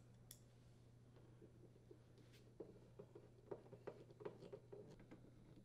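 Near silence with a faint steady hum. From about two and a half seconds in come soft, irregular clicks of a hand screwdriver turning screws into a dryer door assembly.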